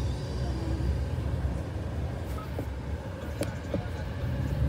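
Road and engine noise heard inside the cabin of a moving car: a steady low rumble, with a few faint clicks in the second half.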